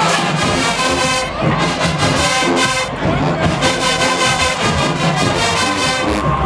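HBCU marching band playing in the stands: loud brass with trombones and trumpets over drums, in short rhythmic phrases with brief breaks.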